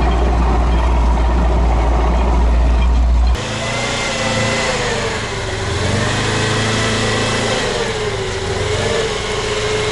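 Heavy, dense low rumble of a tracked all-terrain vehicle heard from inside its cab, cutting off abruptly about a third of the way in. Then a small 4x4 off-roader, a LuAZ, drives through mud, its engine pitch rising and falling with the throttle.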